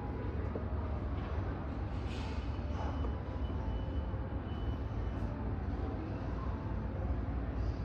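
Airport ambience: a steady low rumble of aircraft and airport traffic, with a faint thin whine for a few seconds in the middle.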